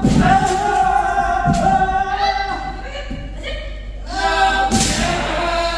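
Kendo kiai: several high-pitched, long-held shouts from several practitioners overlapping, with sharp thuds from shinai strikes and stamping footwork about once a second.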